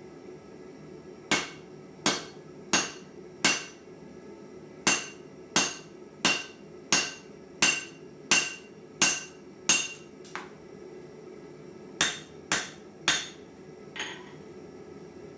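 Forging hammer striking hot rasp steel on an anvil, about one and a half blows a second in three runs: four blows, a pause, nine more, a pause of under two seconds, then four. Each blow rings briefly with a metallic tone, and a steady low hum runs underneath.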